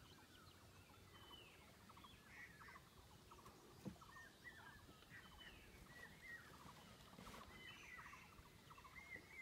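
Faint, distant birds chirping: many short calls, most falling in pitch, scattered through the quiet. A single soft knock about four seconds in.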